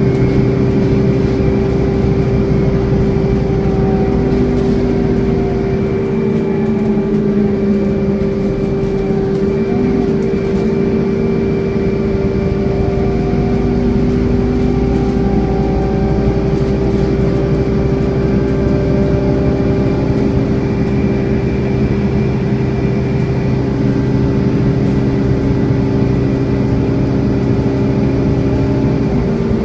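Scania N230UD double-decker bus running, with a steady, unchanging vacuum-cleaner-like drone ("hoovering") held throughout. Under it, the engine note slowly rises and falls as the bus pulls away and eases off.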